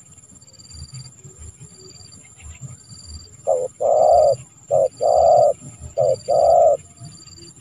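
Spotted dove (tekukur) cooing: about halfway through, one phrase of three pairs, each a short coo followed by a longer, loud, deep coo. Behind it run a steady high-pitched tone and regular faint high pulses.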